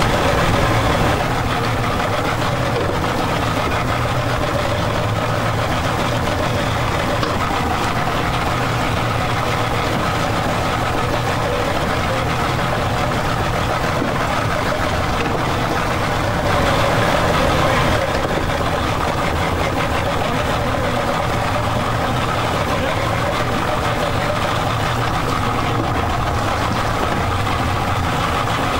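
Inshore lifeboat's outboard engine idling steadily while the boat is held against the breakwater. It is briefly louder about seventeen seconds in.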